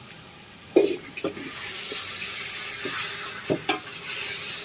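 Raw chicken pieces sizzling in hot spiced oil in a steel pot over a wood fire, the tempering (phodni) of the chicken. A steel spoon knocks against the pot about a second in, again shortly after, and twice more past the middle. The sizzle grows louder after the first knock and holds steady.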